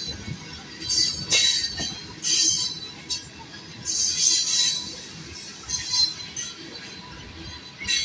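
Loaded freight train of tank cars rolling past, a steady rumble of wheels on rail broken by repeated high-pitched metallic squeals from the wheels every second or two.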